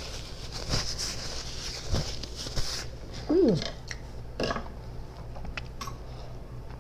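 Someone eating a toasted BLT sandwich: chewing and mouth sounds, a paper napkin rustling, and a short falling "mmm" of enjoyment about three seconds in.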